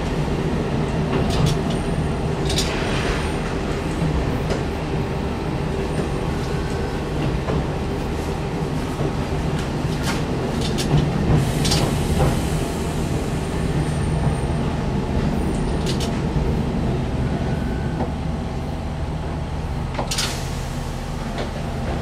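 Kominato Railway diesel railcar running along the track, heard from the cab: a steady low engine and running hum with occasional sharp clacks from the wheels on the rails.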